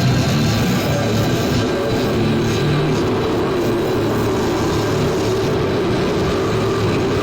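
Harsh industrial / power electronics noise music: a dense wall of distorted noise over a steady low droning rumble, at an even loudness with no clear beat.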